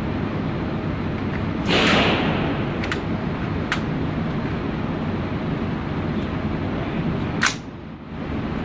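AR-15 rifle shots: a louder, longer report about two seconds in and a sharp crack near the end, after which the level briefly drops, with a couple of fainter cracks between, over a steady background hiss.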